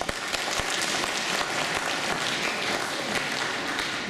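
Audience applauding, starting suddenly and tailing off near the end.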